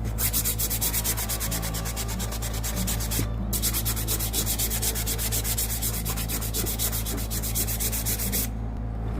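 Sandpaper rubbed by hand in quick back-and-forth strokes over a painted, decoupaged wood block, dulling the shiny napkin areas to even out the sheen and age the finish. The strokes pause briefly about three seconds in and stop shortly before the end.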